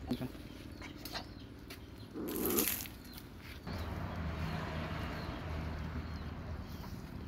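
Several dogs eating together from a shared plastic tub of wet rice: lapping, chewing and clicks against the tub, with a short louder noise a little over two seconds in. A low steady hum joins about halfway, and faint bird chirps sound in the background.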